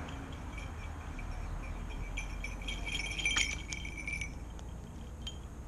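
Small metal falconry bells on a bird of prey's legs jingling as it flies in and lands on a post perch. The jingling is loudest for about two seconds and stops abruptly as the bird settles.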